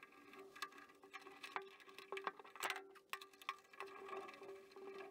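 Scattered light clicks and taps of a hand screwdriver turning a screw and knocking against a fitting on the car's bare steel body, over a faint steady hum.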